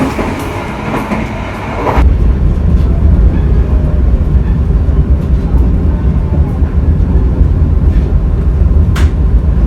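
Train running on the rails. About two seconds in, the sound changes abruptly to a louder, deep rumble, with a single click near the end.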